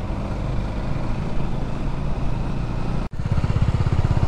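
Motorcycle engines running at riding speed, with wind and road noise. About three seconds in there is an abrupt cut to a louder engine with a fast, even pulsing beat.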